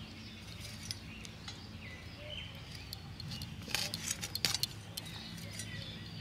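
Chicken gizzards being cut against a curved boti blade over a steel plate. It is mostly quiet handling, with a cluster of sharp clicks and clinks about four seconds in. Birds chirp faintly in the background over a low steady hum.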